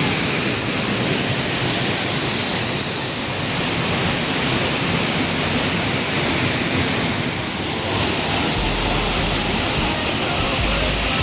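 Waterfall rushing: loud, steady noise of falling and splashing water, its high hiss softening for a few seconds in the middle.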